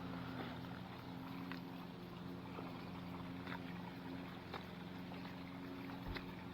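A motor running steadily: a low, even hum made of several steady tones, with a few faint ticks over it.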